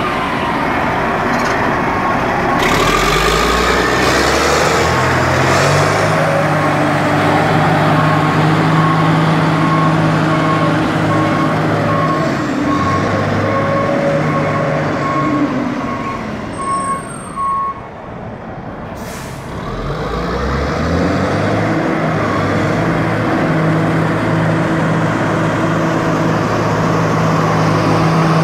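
Caterpillar 621F wheel tractor-scraper's diesel engine running as the machine drives, its pitch rising and falling with throttle and gear changes. Through the middle of the stretch a reversing alarm beeps steadily while the machine backs away. Near the two-thirds mark the engine drops low, then revs up again as it pulls forward.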